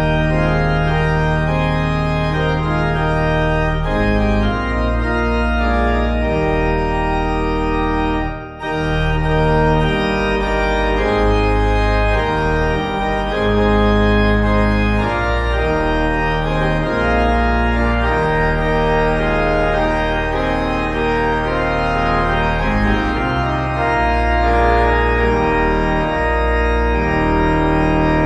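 Organ music playing sustained chords that change every second or two, with a brief break about eight seconds in.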